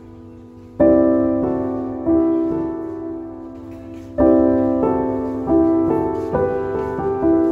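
Slow background piano music: soft chords, each struck and left to fade, the first loud one coming in just under a second in.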